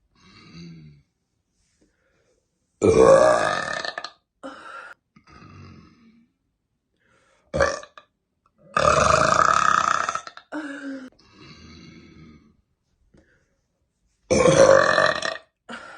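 A woman burping loudly and at length: three drawn-out burps, about three, nine and fourteen seconds in, with a short burp just before the second and softer sounds in between.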